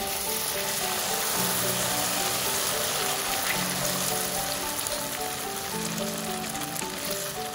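Beaten egg frying in hot oil in a wok, a steady loud sizzle that began as the egg hit the oil. Soft background music plays alongside.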